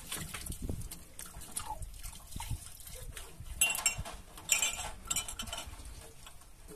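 Scattered knocks and clinks, with two louder clattering bursts with a ringing edge around the middle.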